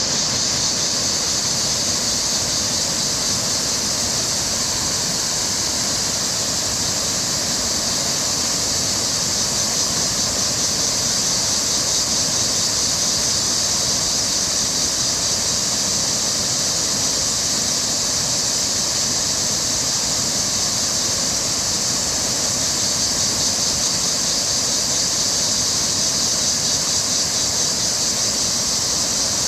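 Rushing river water pouring over rocks, a steady, unbroken hiss.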